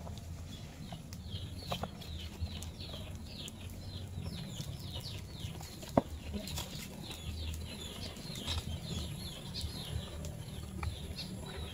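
Birds chirping steadily, many short falling chirps several a second, over a low steady background hum. A single sharp click sounds about six seconds in.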